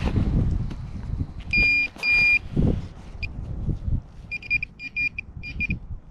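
Metal detector beeping on a buried target: two longer high beeps, a short blip, then a run of short quick beeps. Wind buffets the microphone underneath.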